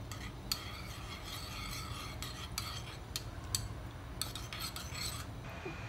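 Eggs being beaten in a small ceramic bowl, the utensil clicking and scraping against the bowl in quick, irregular strokes, over a steady low hum.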